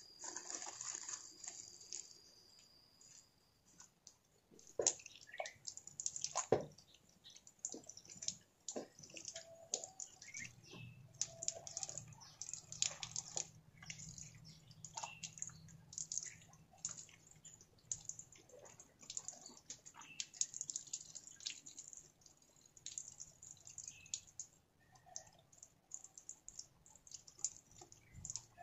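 Irregular light clicks, taps and scrapes of hand work, with a few sharper knocks.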